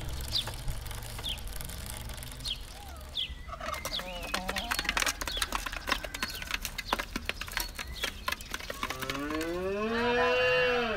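Chickens pecking rapidly at a feed dish, a quick patter of sharp clicks with a brief cluck, after a few short chirps. Near the end a young calf moos once, a long call that rises and then holds.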